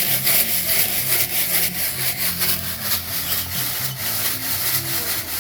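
BBs rattling and scraping inside a metal gas tank shaken back and forth in a steady rhythm, scouring out the old tank lining and rust.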